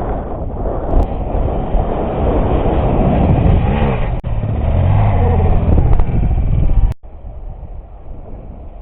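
Off-road motorcycle engine running under way, its pitch rising and falling as it revs. About seven seconds in it cuts abruptly to a quieter engine sound.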